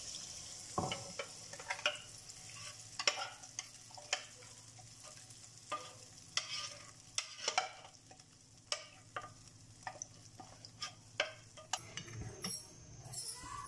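Semolina batter poured into hot cooking oil in a pan, frying with irregular sharp crackles and pops over a faint sizzle. A wooden spatula starts stirring it near the end.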